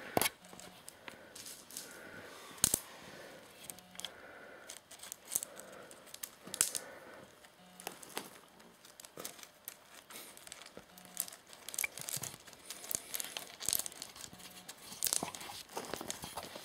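Loose stone chips crunching and rattling under a young Siberian forest cat's paws as it walks and digs through them, in scattered short clicks and crunches.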